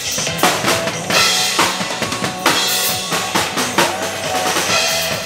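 Acoustic drum kit played live, with bass drum, snare and repeated cymbal crashes, over a recorded pop backing track.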